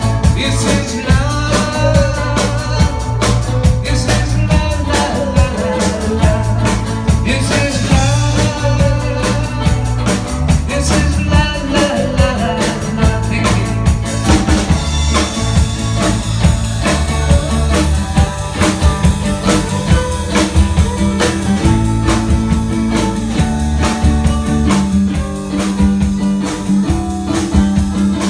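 Live band playing an upbeat blues-rock number with drum kit, bass and a bending lead line that is strongest in the first half.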